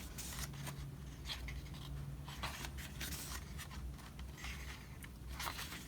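Soft paper rustling with scattered light clicks and taps: the pages of a CD album's photo book being handled and turned.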